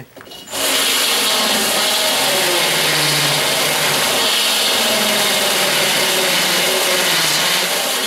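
Ryobi cordless drill spinning a rasp bit, grinding out the bottom edge of a deadbolt strike hole in a door frame: a steady, loud grinding that starts about half a second in.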